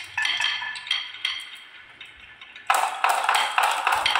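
Glass marbles rolling down wavy wooden grooves, clicking and clinking against the wood and one another. The clatter thins out midway, then a dense, louder run of clinks starts about two and a half seconds in.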